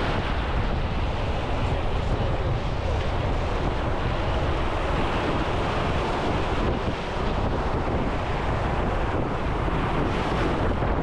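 Wind buffeting the microphone: a steady, loud rushing with a deep rumble.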